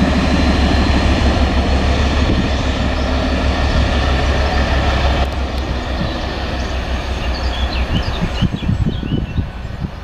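British Rail Class 56 diesel locomotive's Ruston-Paxman V16 engine running as the light engine draws away along the track. It is loud at first, then fades in steps over the second half.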